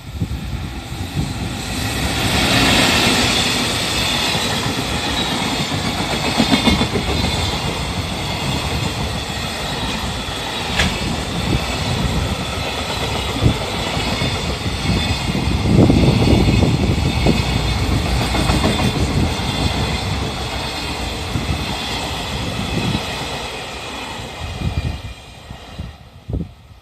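Freight train hauled by an EF65 electric locomotive rolling past over a level crossing: a steady rumble and clickety-clack of the wagons' wheels on the rails. A level-crossing warning bell rings through most of the passage, and both die away near the end as the last wagons clear the crossing.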